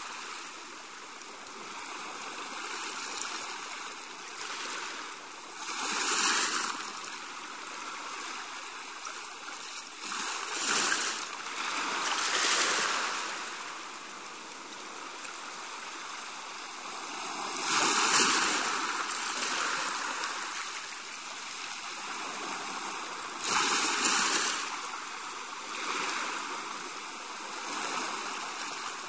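Sea waves washing in: a steady hiss of water that swells with each wave every few seconds, the biggest surges about 6, 18 and 24 seconds in.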